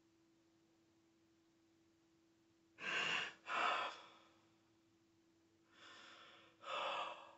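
A man's crying breaths: two sharp, gasping breaths in quick succession about three seconds in, then a softer breath and another gasping one near the end.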